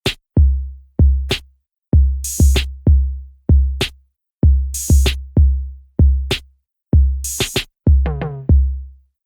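Electronic drum-machine beat starting out of silence: deep kick drums about twice a second, with a cymbal-like hit every two to three seconds and a short pitched drum fill near the end.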